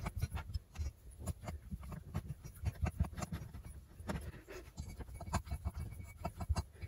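Faint, irregular clicks and taps as the screws holding the new cylinder onto a Stihl MS170 chainsaw engine are tightened.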